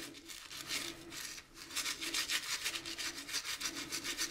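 An old toothbrush scrubbing a plastic model car tire in soapy water, with rapid back-and-forth rubbing strokes that get louder about a second and a half in.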